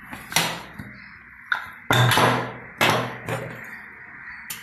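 Aluminium pressure cooker and metal ladle clanking: about six sharp knocks, the loudest about two seconds in, as the lid is handled and the ladle strikes the pot while the ghee rice is mixed.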